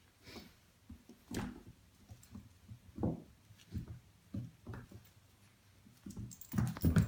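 Irregular soft thumps and scuffling of a Boston Terrier puppy and a cat play-fighting, getting busier and louder near the end.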